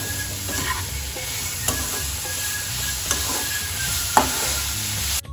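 Grated carrots and sugar sizzling in ghee in a non-stick kadai while a metal spoon stirs them, scraping and tapping the pan now and then, with one sharper knock about four seconds in. The sizzle cuts off suddenly at the very end.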